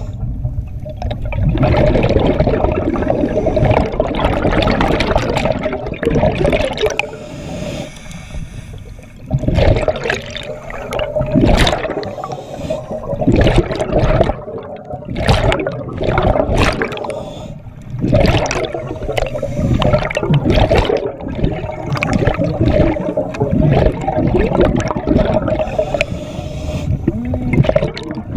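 Scuba divers' exhaled bubbles gurgling and rushing past an underwater camera, coming in irregular surges and short bursts.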